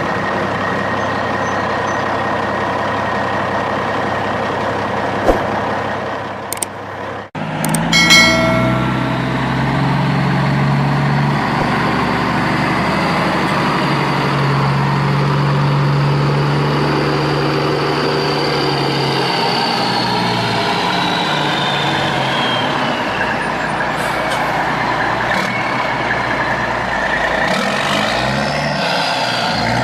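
Truck engine sound running steadily, with a short break and a few clicks about seven seconds in, then running on with slowly shifting, gliding pitch.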